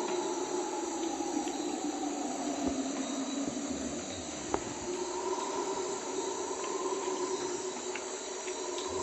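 Guianan red howler monkeys (Alouatta macconnelli) howling in chorus: a deep, droning roar that eases a little around the middle and swells again. Under it is a steady hiss of rain, with one sharp click about halfway through.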